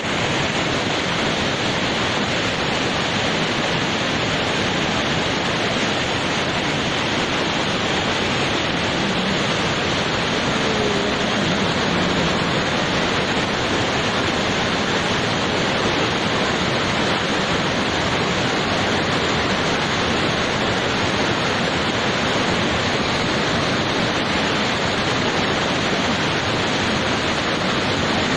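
A muddy flash-flood torrent rushing down a steep, boulder-strewn channel, making a steady, loud rush of water.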